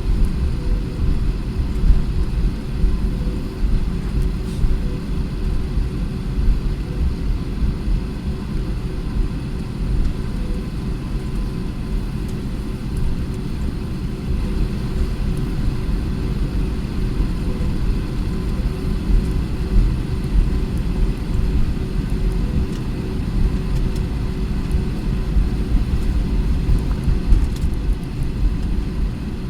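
Airbus A320 cabin noise on the ground before takeoff: a steady low rumble with a faint steady hum above it.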